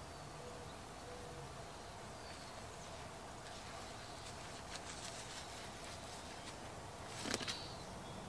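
Quiet garden background: faint birdsong over a steady hiss, with a brief rustle near the end.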